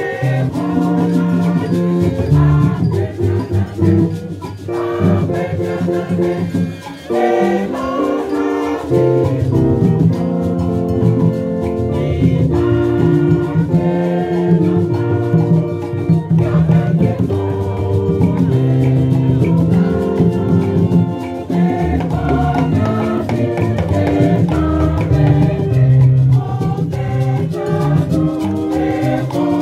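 Church choir singing together, many voices holding and moving between sustained notes, over a steady beat from hand drums and a rattle.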